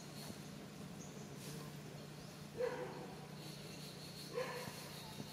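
Two short calls from a macaque, about two seconds apart.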